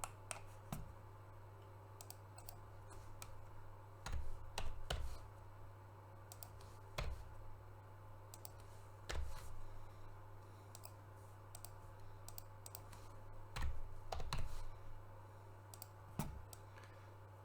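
Computer keyboard typing and mouse clicks in scattered short bursts, over a steady low electrical hum.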